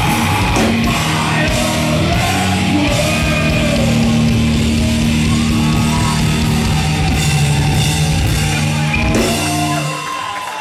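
Live heavy metal band playing loud, with distorted guitars, drums and shouted vocals, heard from within the crowd. The band stops about ten seconds in, leaving crowd noise.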